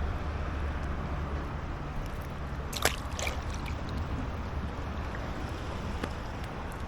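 Steady rush of flowing river water with a low rumble. There is a brief sharp sound about three seconds in and a fainter click about six seconds in.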